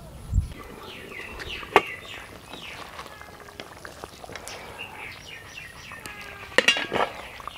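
Cooking clatter: a wooden spatula knocks against a wok, with a sharp clink about two seconds in and a quick cluster of metallic clatters near the end as a metal lid is handled. Birds chirp throughout.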